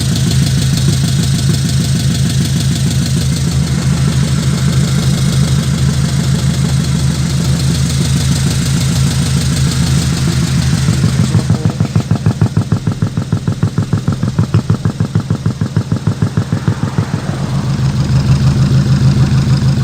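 Engine sound of an RC miniature dump truck, a deep diesel-like idle. About halfway through it drops lower and throbs a few times a second, then grows louder again near the end.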